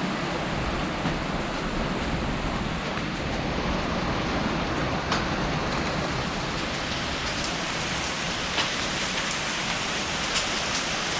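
Heavy rain pouring down steadily in a windstorm, with a few sharp ticks scattered through it, more toward the end: the first hailstones of another round of hail.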